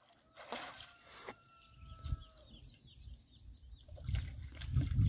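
Outdoor ambience: a drawn-out distant bird call about half a second in, lasting under two seconds, then a low, uneven rumbling noise that grows louder toward the end.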